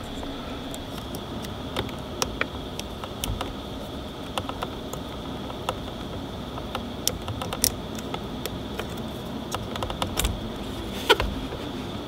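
Scattered small clicks and taps of a metal pick prying at the plastic airbag connectors on the back of a car's driver airbag module, with a louder click about eleven seconds in, over a steady faint background hum.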